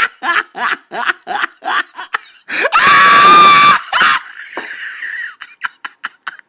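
A person laughing in quick, repeated bursts, then a loud scream held for about a second, about two and a half seconds in, followed by fainter breathy sounds.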